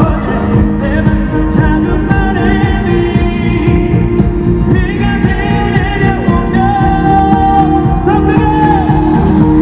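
A male singer singing a pop song live into a handheld microphone over backing music, heard through a loud arena sound system.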